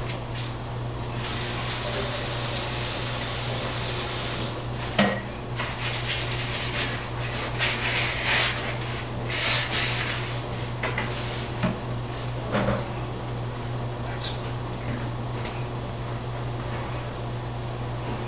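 Cooking sounds: cookware and utensils clattering and clinking, with a few sharp knocks, over a steady low hum. A loud hiss starts about a second in and cuts off a few seconds later.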